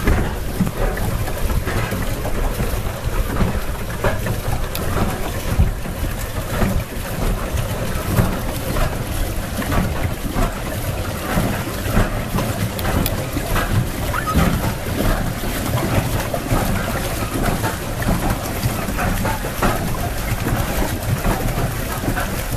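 Wind buffeting the microphone in an unsteady low rumble, over water splashing and lapping against the hull of a moving electric pedal boat.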